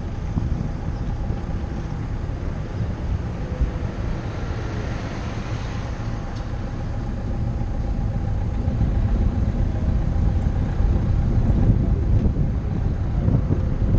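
Car driving through town heard from inside the cabin: a steady engine and tyre rumble that grows somewhat louder in the second half.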